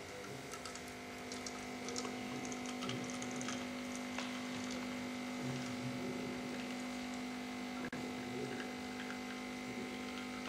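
Italcaffè Espresso System capsule espresso machine's pump humming steadily and quietly while the espresso pours into the cup, with faint small ticks over the hum.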